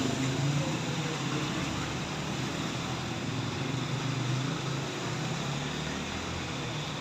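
A vehicle engine running steadily: a low, even hum with hiss over it.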